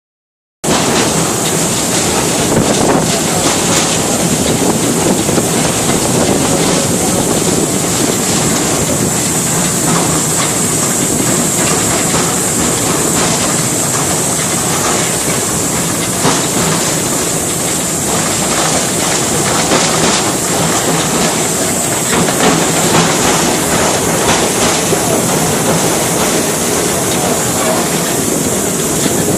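Narrow-gauge train running along the track: a steady running noise with faint irregular clicks of wheels over the rails and a constant high hiss, starting about half a second in.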